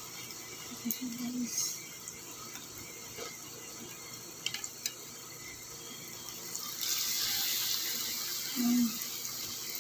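Battered chicken eggs deep-frying in hot oil in a wok: a steady sizzle that grows louder about seven seconds in, with a few small clicks near the middle.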